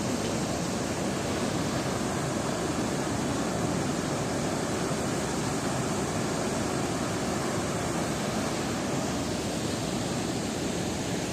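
Waterfall with a steady, even rush of falling water.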